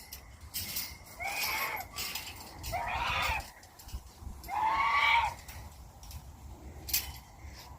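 Domestic goose honking three times, each call drawn out and under a second long, spaced about a second and a half apart.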